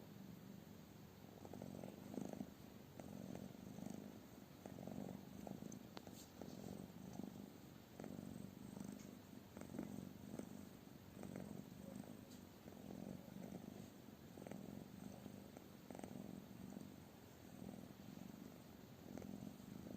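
A cat purring, faint and low, swelling and easing about once a second with its breathing.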